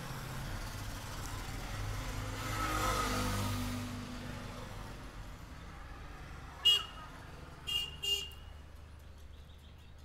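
Background road traffic: a vehicle's rumble swells and fades about three seconds in, then three short horn toots, the last two close together.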